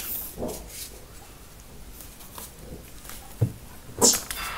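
Baijia banknote counter briefly running: a sharp click about three and a half seconds in, then a short, loud whirring rush as its rollers spin and feed through.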